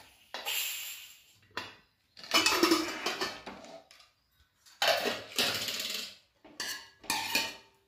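Stainless-steel pressure cooker lid being twisted open and lifted off, metal scraping and clanking against the pot in four or five bursts.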